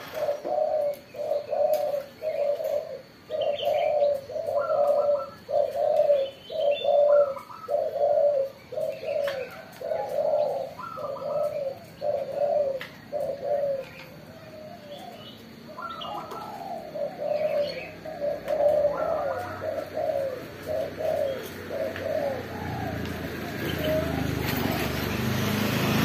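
Caged doves cooing, a long run of short repeated coos, more than one a second, with scattered higher chirps from other birds. Over the last few seconds a low rumble builds up underneath.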